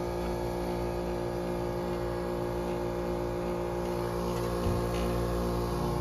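2004 Carrier Comfort Series heat pump outdoor unit running in a defrost cycle, its compressor giving a steady hum of several fixed tones. A faint knock comes just before the end.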